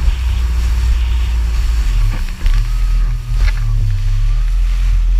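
Yamaha WaveRunner jet ski running at speed over open water: a loud, steady low rumble of engine and wind buffeting the handlebar-mounted action camera, dipping briefly about two seconds in.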